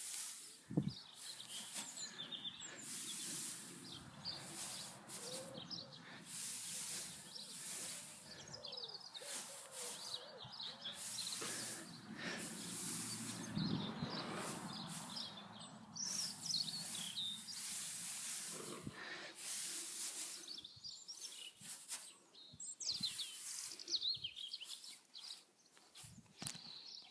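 Small birds chirping and singing on and off, with intermittent stretches of rushing noise.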